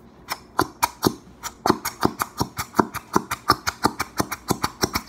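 Plastic glue bottle squeezed hard and fast, upside down and nearly empty, giving a rapid series of sharp clicking pops, about four or five a second, from the bottle and its nozzle. The pops stop suddenly at the end.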